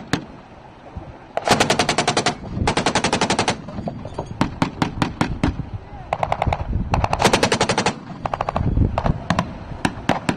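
Automatic gunfire: four short bursts of rapid fire, each under a second long, with scattered single shots in between.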